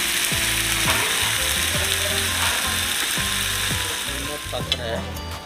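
Marinated boneless mutton slices sizzling steadily as they fry in hot oil on a ridged grill plate, the first side cooking; the sizzle eases slightly near the end.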